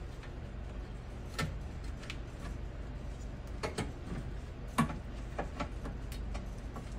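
Scattered sharp plastic clicks and knocks, about half a dozen, the loudest a little before the 5-second mark, as wiring is pressed and looped into a plastic channel along the UTV cab roof, over a steady low hum.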